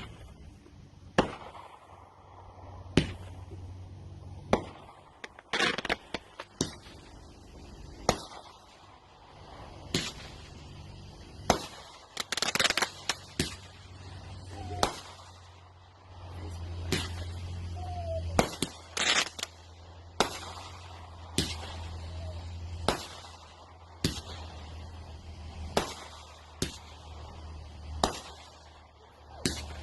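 Consumer fireworks going off one after another, a sharp report about every second and a half. Thicker crackling clusters come about a fifth, two fifths and two thirds of the way through, and two short rising whistles come in between.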